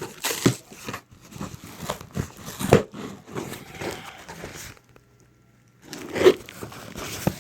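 Cardboard box and its packing being torn and crumpled open by hand, in irregular rustles and crunches, with a short pause about five seconds in.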